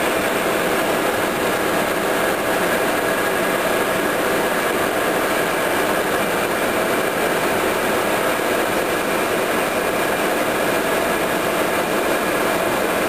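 Large O&M machine tool running under power: its electric motors and pump units make a steady hum of several even tones over a broad hiss that does not change.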